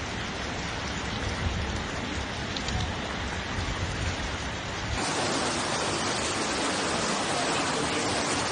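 Heavy rain, a steady hiss. About five seconds in it changes abruptly to a louder, brighter hiss of rain.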